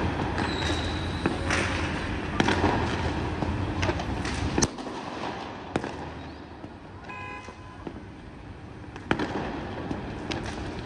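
Fireworks and firecrackers going off across the city: scattered sharp bangs and cracks at irregular intervals, over a steady background hum that drops away about halfway through.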